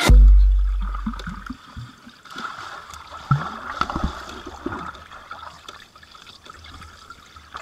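Muffled underwater sound: gurgling water with scattered soft knocks and bumps. It opens with a deep low boom that fades away over the first second and a half.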